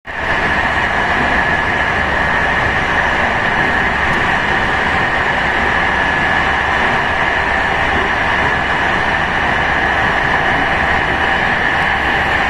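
Moving train heard from inside the carriage: a steady rumble and hiss of running noise with a constant high whine over it.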